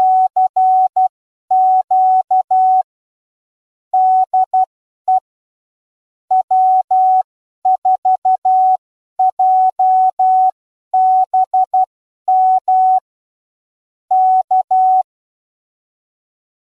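Morse code sent as a single steady beep tone keyed in dots and dashes, spelling the amateur radio call 'CQ DE W4JBM K': a general call followed by the station's callsign and the invitation to reply.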